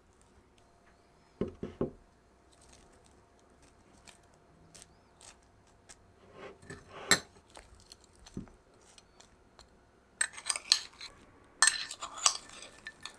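Kitchen utensils and dishware clinking and knocking: a few light knocks about a second and a half in, scattered taps, then a quick flurry of sharp clinks over the last three seconds.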